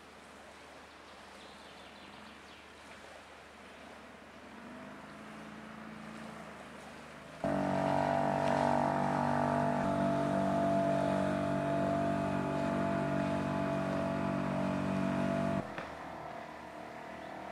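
Small outboard motor on an inflatable dinghy running at speed, a steady engine note. It cuts in suddenly about seven seconds in and stops abruptly about eight seconds later; before it there is only faint outdoor background.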